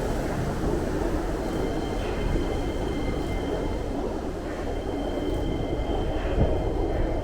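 Electric trains running side by side on the rails, a steady rumble of wheels on track with faint steady high-pitched tones above it.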